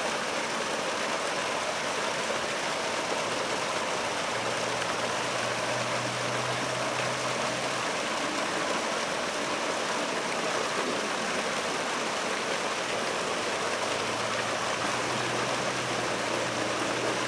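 Steady, even background hiss, with a faint low hum that comes in about four seconds in and again near the end.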